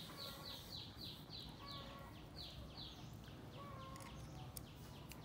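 A bird chirping over and over, a short high note falling in pitch about three times a second, faint against a low background hiss.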